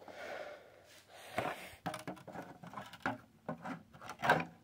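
Light scattered taps and knocks of a smartphone being handled and set upright inside a glass jar, with a louder knock near the end.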